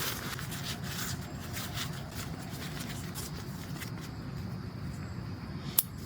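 Rustling and scraping as camping gear is handled and packed up, with a single sharp click near the end.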